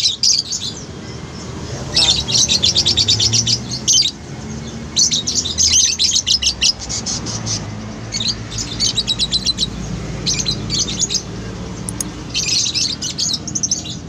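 Caged lovebirds chattering in bursts of rapid, shrill chirps. Each burst lasts a second or two and they come about five times, over a low background rumble.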